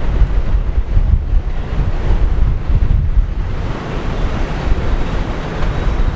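Wind buffeting the microphone with a gusty low rumble, while an approaching subway train's wheel and rail noise swells into a broad hiss from about halfway through.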